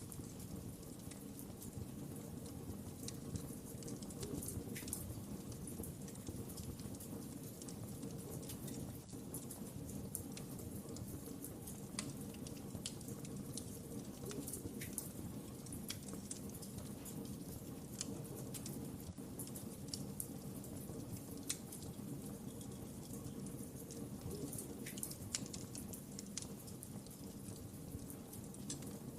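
Wood fire crackling in a fireplace: irregular sharp pops and snaps over a steady low rumble of burning.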